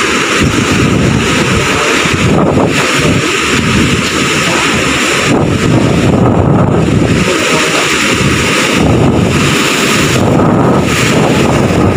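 Loud typhoon wind buffeting the microphone, a continuous rushing noise that surges and eases in gusts every couple of seconds.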